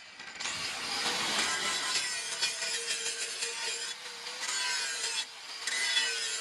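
Steel katana blade being worked by hand with an abrasive: long rasping strokes, broken by short pauses about four and five seconds in.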